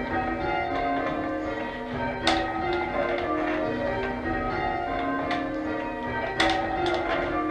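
Church tower bells change ringing: a steady sequence of bell strikes with overlapping, ringing tones, heard from the ringing chamber. Two sharp knocks stand out, one about a third of the way in and one near the end.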